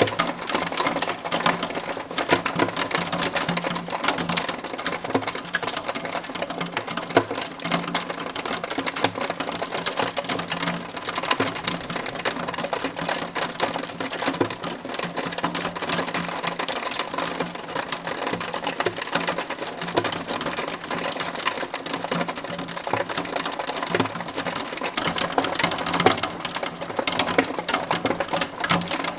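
Hail and rain pelting a window pane: a dense, unbroken rattle of fast, irregular hard ticks.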